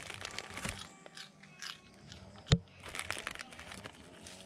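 A long-tailed macaque crunching and chewing a piece of food, a string of crisp crackles, with one sharp loud click about two and a half seconds in.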